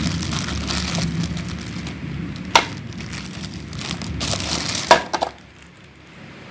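Crinkling and rustling of plastic packaging while a sewing machine's power cord is handled, with two sharp clacks, one about two and a half seconds in and one about five seconds in.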